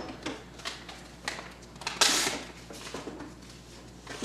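Paper slip rustling and crinkling as it is handled and opened, with light clicks from hands against a clear plastic raffle drum; one sharp paper crackle about two seconds in.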